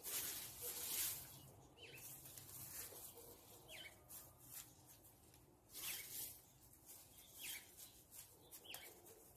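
Dry autumn leaves rustling and crackling in bursts as they are handled and spread over potting soil as mulch, loudest in the first second and again around six seconds in. A few faint bird chirps.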